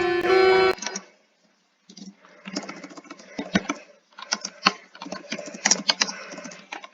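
A loud chiming alarm tone cuts off under a second in. After a short silence, a computer keyboard is typed on in quick, irregular clicks.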